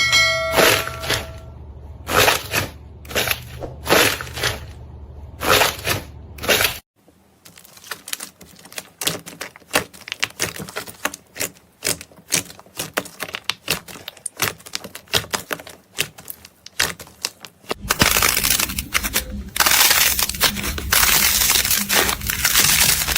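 Slime being squeezed and poked by hand, giving sharp crunchy clicks. A few strong strokes come first, then a long run of fine crackling clicks, and dense crackling near the end.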